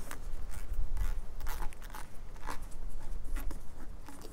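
Hands working cables, corrugated plastic conduit and a temperature-sensor lead at a battery pack: irregular rustling, scraping and small clicks, over a low rumble.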